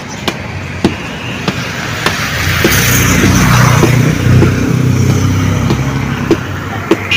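A motor vehicle's engine running close by, growing louder to a peak about three to four seconds in and then easing off, as of a vehicle passing, with scattered small clicks.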